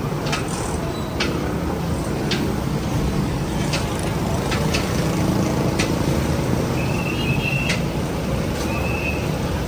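Busy street noise with traffic running steadily, sharp clicks scattered throughout, and three short high-pitched tones in the second half.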